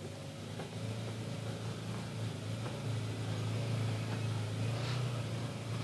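Can-Am Maverick Trail side-by-side's V-twin engine running at low revs while crawling slowly over rocks: a steady low hum that rises a little partway through, with a few faint knocks.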